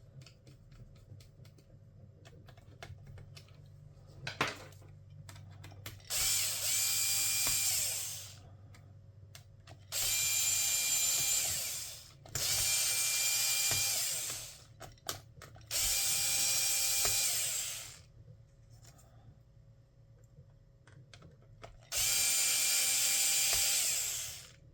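A small electric screwdriver running five times in short bursts of about two seconds, a steady motor whine each time as it turns out or drives in the laptop's tiny screws. Light clicks and a sharp tap come before the first run.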